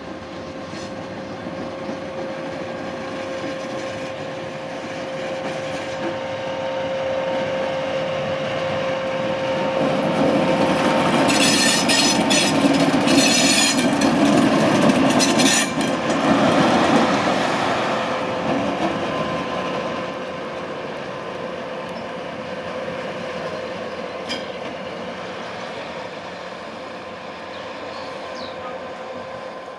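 Ludmilla diesel locomotive running light past, its V16 diesel engine running with a steady whine. The sound swells to its loudest about halfway as it passes close, with rattling and clicking from the wheels over the track, then eases as it moves away.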